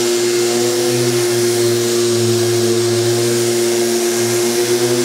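Electric orbital sander and its dust extractor running steadily: a constant motor hum over an airy rush of suction through the extraction hose.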